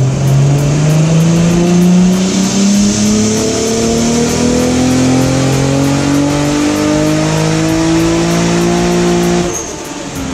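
Toyota 2JZ inline-six in a Supra pulling hard on a chassis dyno, its pitch rising steadily through the rev range, then the throttle closes and the sound drops away near the end.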